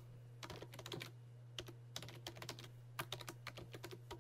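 Computer keyboard keys clicking in short, irregular runs as a command is typed, over a steady low hum.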